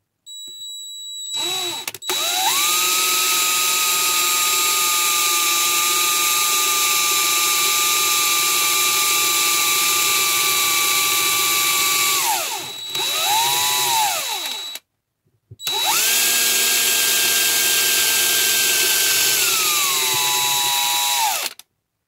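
Power drill running with its bit against the base of a brass bullet casing held in a vise. It spins up about a second in and runs at a steady whine, slows and spins up briefly again, stops for about a second, then runs again, its pitch dropping just before it stops.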